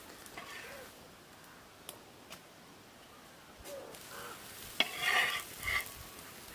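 Faint sizzling of a pitha cooking on an iron griddle. About five seconds in, a sharp metallic clink and a short scrape as a steel spatula is slid under the cake against the griddle, then a second brief scrape.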